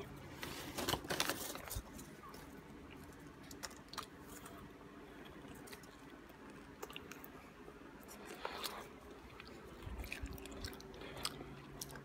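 Someone chewing popcorn close to the microphone: soft, scattered crunches and clicks, over a faint steady low hum.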